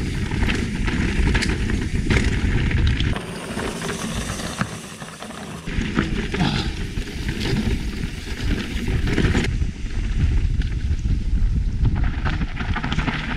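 A mountain bike descending a rough trail: tyres rolling over stones and dirt, with frequent clicks and rattles from the bike. A heavy rumble of wind buffets the microphone throughout, easing for a few seconds near the middle.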